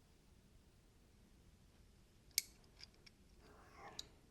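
A few light, sharp clicks of a Medford folding knife's parts being fitted together as the backspacer is seated, the loudest about halfway through, with a soft brief rustle near the end.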